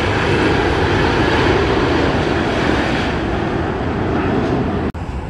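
Jet airliner engines, a loud steady rush of noise, briefly cut off near the end.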